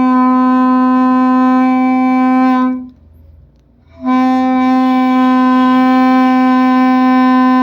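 Homemade paper-cup air horn with a stretched balloon membrane, blown through a straw, sounding a steady, loud horn tone at one pitch. It stops a little before halfway, pauses for about a second, then sounds a second long blast at the same pitch.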